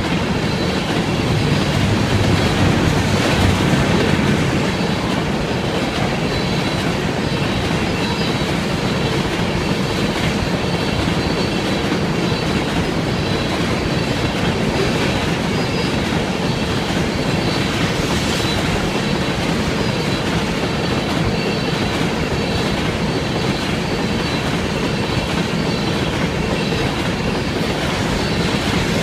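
Loaded crude-oil tank cars of a freight train rolling steadily past, their wheels clacking over the rail joints, with a thin steady high squeal from the wheels on the rails.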